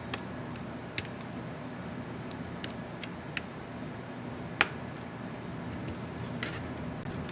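Light plastic clicks from an Asus X550C laptop keycap and its scissor clips being handled and pressed, about eight irregular clicks with one sharper snap about four and a half seconds in. A steady low hum runs underneath.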